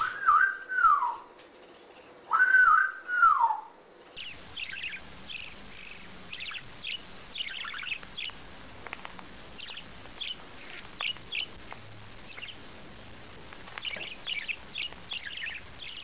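An African grey parrot gives two loud whistled calls, each rising, holding, then sliding down. From about four seconds in, a small white parakeet chirps in quick, high notes, in scattered runs.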